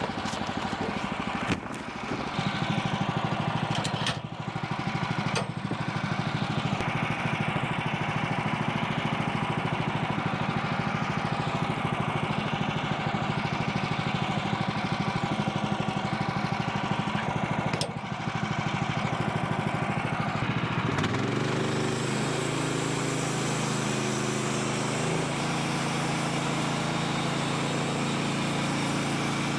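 The gas engine of a Woodland Mills portable bandsaw mill runs steadily while the band blade saws through a red oak log. About two-thirds of the way through, the engine's pitch glides and settles onto a new steady note. A few sharp knocks sound in the first half.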